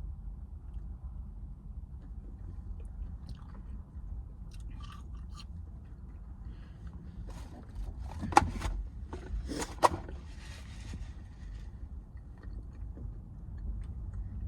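Close-up chewing and biting of food, with scattered small mouth clicks and two louder smacks about eight and ten seconds in, over a low steady hum.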